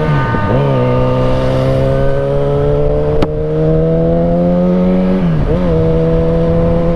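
Yamaha XJ6 inline-four motorcycle engine running under way, its pitch slowly rising as it accelerates. The pitch dips briefly about half a second in and again about five seconds in, then recovers, with rushing wind underneath.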